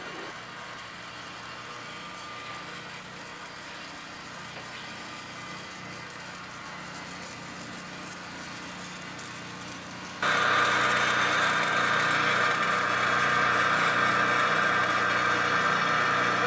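A steady low mechanical hum; about ten seconds in, a much louder rushing noise cuts in abruptly and carries on over it.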